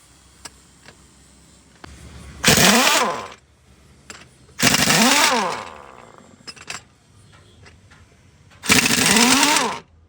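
A power tool run in three short bursts of about a second each, its pitch rising and then falling each time it is triggered, as used for work on the truck's wheel studs and brake drum.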